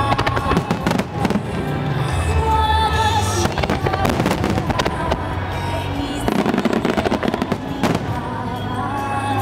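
Fireworks bursting and crackling in rapid clusters of bangs over music with a steady melody.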